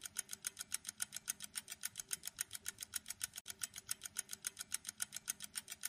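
Quiz countdown timer sound effect: a fast, even ticking, about six ticks a second.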